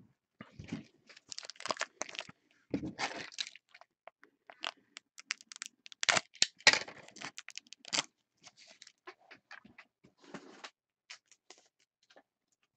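Plastic handling noise from a magnetic one-touch card holder being worked by hand: irregular clicks, taps and rustles, the loudest clicks about six to seven seconds in, thinning out near the end.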